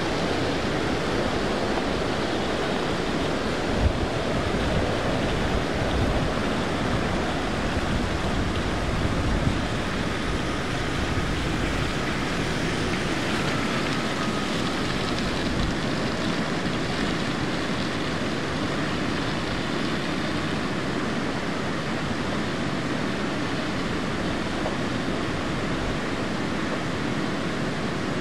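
Steady rushing of a flooded creek, with wind buffeting the microphone in low gusts.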